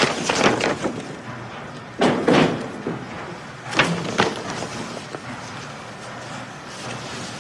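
Three short bursts of rustling and knocking, near the start, about two seconds in and about four seconds in: paper being handled and a door being opened.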